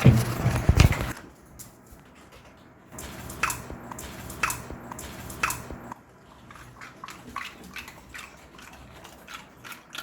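Welsh corgi puppy chewing a snack: a loud rustling, handling noise about a second long at the start, then a run of short crunching clicks, about one a second at first and then quicker and fainter.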